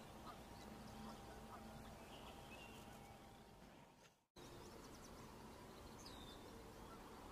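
Near silence: faint outdoor background with a few thin, distant bird chirps, dropping out for an instant about four seconds in.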